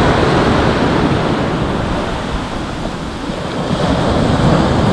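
Ocean surf washing onto the beach, a steady loud wash that eases off in the middle and swells again, with wind rumbling on the microphone.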